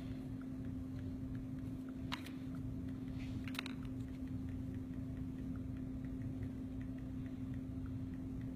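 Small light clicks of plastic nail tips being handled and tried against fingernails, a few of them sharper about two and three and a half seconds in, over a steady low hum.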